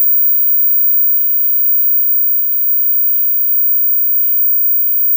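A loud, steady, high-pitched hiss with a crackly texture.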